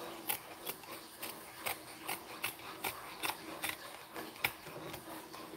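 Upholstery fabric being pulled and worked over an armrest: a string of small, quick clicks and rustles, about two or three a second.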